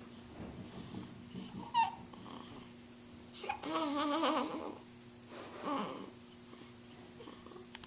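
A chuckle from someone asleep and snoring: a laugh-like voice with a wavering pitch, lasting about a second and starting about three and a half seconds in, followed by a shorter one near six seconds. A short squeak comes just before two seconds in.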